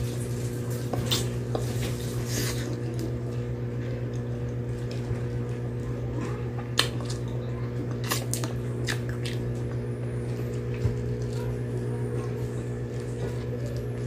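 Eating sounds: fingers picking grilled tilapia out of its banana-leaf wrapping and a mouth chewing, with scattered small wet clicks and crackles. A steady low hum runs underneath.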